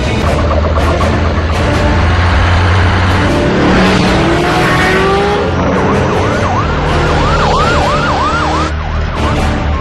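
Cars speeding with engines running, pitch rising as they pass about halfway through, then a police car siren wailing in quick rising-and-falling cycles, about two a second, for the last few seconds.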